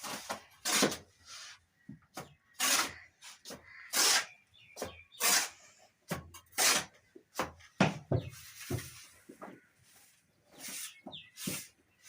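Plastering trowel working mortar on a wall: short scraping strokes, about one a second at an uneven pace.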